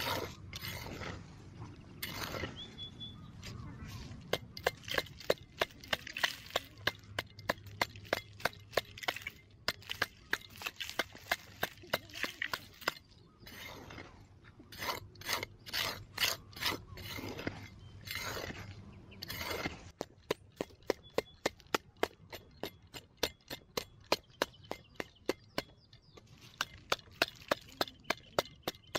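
Short-handled metal digging shovel chopping and scraping into hard, dry dirt: a long run of sharp strikes, about two to three a second, with gritty scrapes of loosened soil between.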